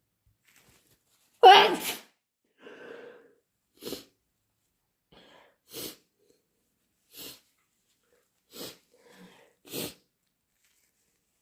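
One loud, wet, induced human sneeze about a second and a half in, followed by a soft breathy sound and a series of short, sharp sniffs about every second and a half.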